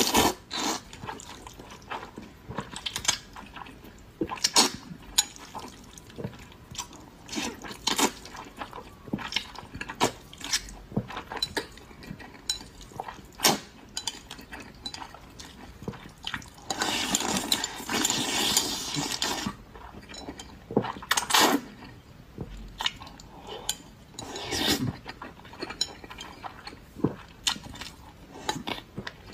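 Close-up eating sounds of a person slurping spicy instant noodles: repeated short wet sucks and mouth smacks, with one long slurp about two-thirds of the way through.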